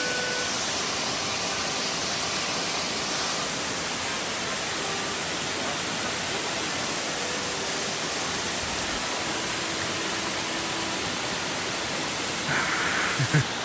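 Ganoga Falls, a 94-foot waterfall, rushing steadily: an even wash of falling water. A couple of brief knocks come near the end.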